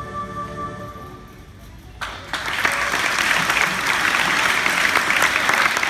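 Soft instrumental background music fades out over the first two seconds; then an audience bursts into applause and keeps clapping.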